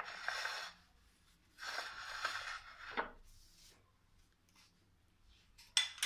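A plastic packet rustling and crinkling in three short bursts as grated cheese is shaken out of it over a platter of spaghetti.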